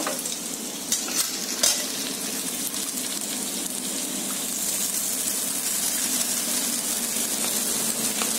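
Vegetables and paneer frying and sizzling in a kadai while cooked basmati rice is tipped in from a steel pan with a wooden spatula. There are a few light knocks in the first two seconds, and the sizzle grows a little louder in the second half.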